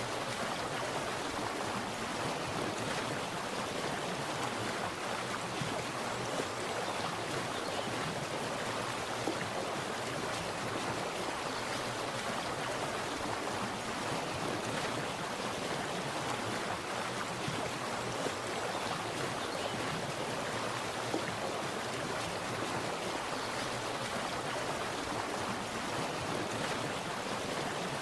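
Water splashing and running steadily, a stream-like rushing with no breaks.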